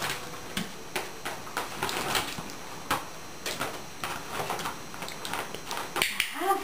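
Irregular light clicks and taps from a Border Collie puppy's paws and claws on a wooden floor as it paws at a ball.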